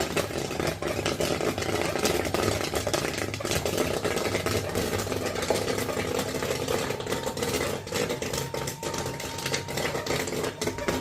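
12-volt popcorn machine running: a steady small-motor hum with dense rattling and clicking throughout, and a faint thin tone joining about seven seconds in.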